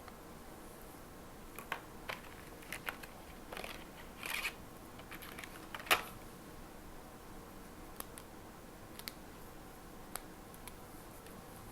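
Faint, scattered clicks, taps and short rustles of small stationery items being handled on a desk, the sharpest click about six seconds in.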